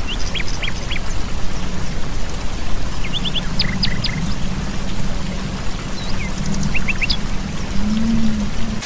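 Steady rush of falling water from a waterfall, with small birds chirping in quick runs of three or four short high notes a few times, over a low steady hum.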